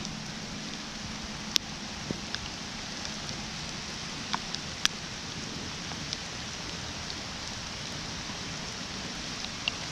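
Steady rain falling, a continuous hiss with scattered sharp ticks of single drops hitting close by.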